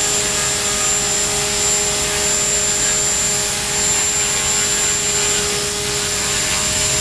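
Align T-REX 450 electric RC helicopter hovering: a steady whine from its electric motor and gearing, holding a constant pitch over the rush of the rotor blades.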